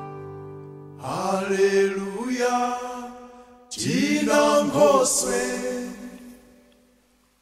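A voice singing two long phrases of held notes that bend in pitch, the first about a second in and the second near the middle, fading out near the end.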